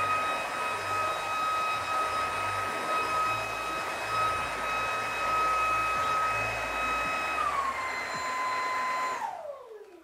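Shark ICZ160UK cordless upright vacuum running in boost mode, a steady high motor whine over the hiss of the airflow. About seven seconds in, the whine drops back to a lower pitch. Near the end it is switched off and the motor winds down with a quickly falling pitch.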